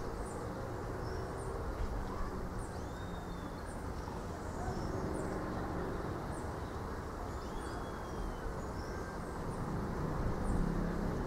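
Wind through coconut palms, with birds chirping over and over in short high notes and now and then a whistled call sliding downward. A low hum comes in near the end.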